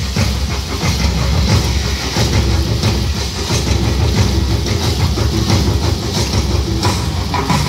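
Loud, bass-heavy show music played over a large outdoor PA, a dense low rumble with quick percussive hits.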